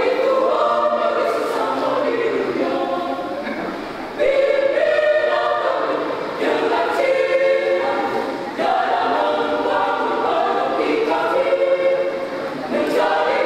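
Mixed adult choir of men and women singing together, in phrases a couple of seconds long, each opening with a fresh loud entry.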